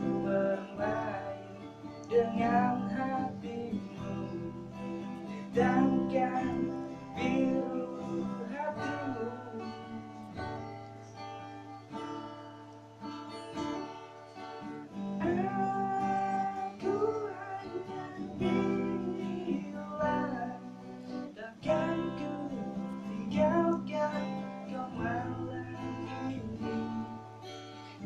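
Acoustic guitar strummed and picked in an instrumental stretch of a song, with no lyrics sung.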